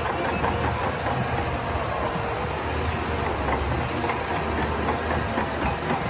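Shantui crawler bulldozer's diesel engine running steadily as its blade pushes sand.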